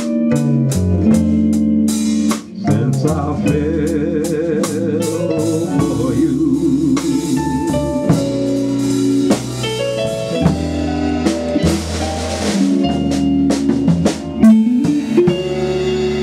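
Instrumental passage of a blues ballad played live by a small combo: upright double bass, electric guitar and drum kit, with rimshots on the snare.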